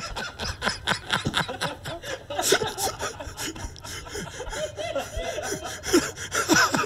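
A man's stifled laughter in short breathy snickers and gasps, broken up by small bumps and rubs of a phone being handled.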